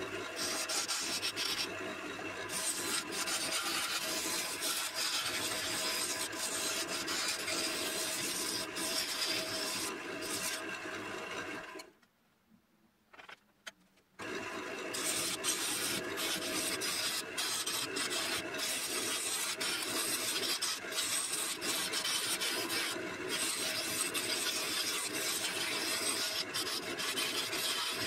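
A turning gouge cutting a spinning wet elm blank on a wood lathe: a continuous shearing, rasping hiss of shavings coming off the wood, over a faint steady hum. The sound drops out for about two seconds midway, then carries on.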